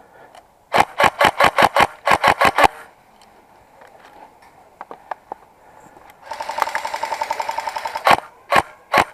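Airsoft rifle firing: two quick strings of about half a dozen shots each in the first three seconds, then a longer rapid full-auto burst with a motor whine from about six to eight seconds in, followed by a few single shots near the end.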